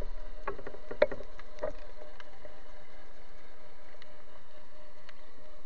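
Underwater sound picked up through an action camera's waterproof housing: a steady hiss, with three or four sharp knocks in the first two seconds.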